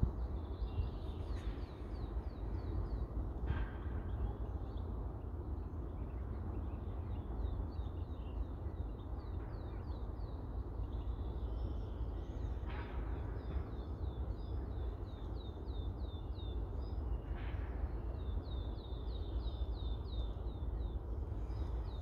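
Wind rumbling on the microphone, with small birds singing runs of quick, high, repeated chirps and a few short harsh calls, like a crow's caw.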